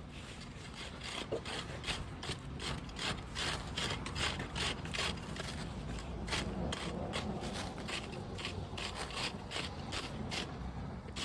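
A hand tool, such as an asphalt rake, scraping and raking over heated asphalt in quick repeated strokes, about two to three a second. This is the hot patch being reworked and levelled.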